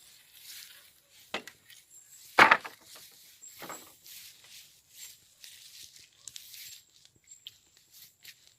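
Irregular footsteps with rustling and crunching and a few sharper knocks, the loudest about two and a half seconds in.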